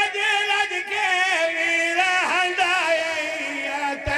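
A man's voice chanting in long, wavering held notes through a microphone: a zakir's lamenting sung recitation of the Karbala martyrdom. A short low thump comes near the end.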